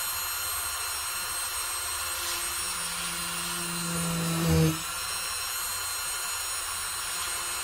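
Handheld rotary tool with a small drill bit running at speed as it drills a jump-ring hole through a baked polymer clay pendant: a steady high whine. A lower hum swells for about two seconds and cuts off sharply just before five seconds in.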